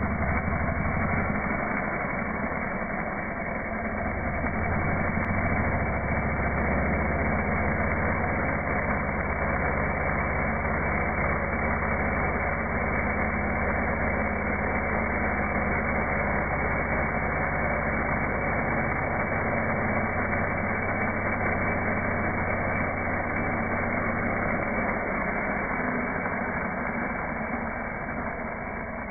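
Stihl chainsaw cutting into soil and a root, its sound slowed down into a low, steady engine drone that eases off near the end.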